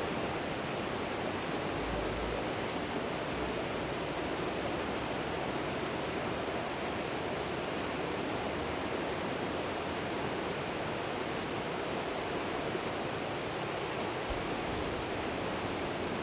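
Fast stream rushing over rocks: a steady, even rush of water.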